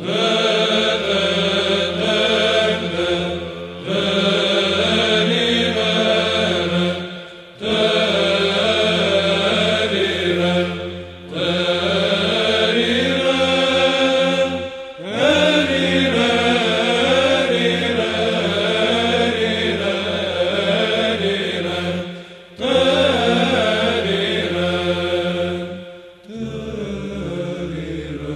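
Byzantine chant of a Terirem in the plagal first mode: men's voices sing a winding melody on wordless syllables ('te-ri-rem') over a steady held low drone, the ison. The phrases are long, with brief breaks between them.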